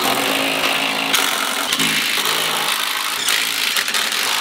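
Cordless impact wrench running almost without pause as it drives a bolt, a loud mechanical whirring and hammering whose pitch shifts a few times.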